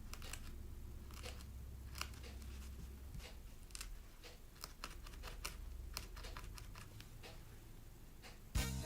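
Quiet handcraft work on wool felt: scattered light clicks, snips and rustles over a low steady hum. Music starts near the end.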